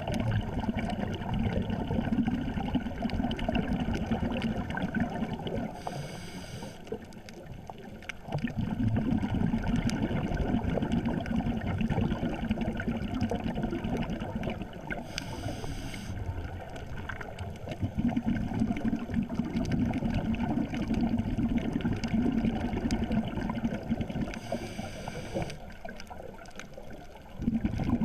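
Scuba diver's regulator breathing, heard underwater: a short hissing inhalation three times, about nine seconds apart, between longer stretches of loud rumbling exhaled bubbles.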